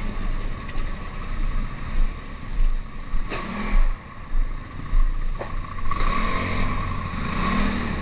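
Street traffic: motorcycle and car engines going by, with uneven low rumbles on the microphone and a few knocks. A steadier engine hum builds from about six seconds in.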